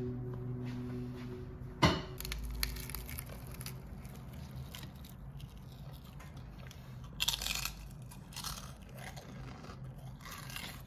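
Crisp deep-fried battered bacon-stuffed onion crunching in several short bursts, with a single sharp knock about two seconds in.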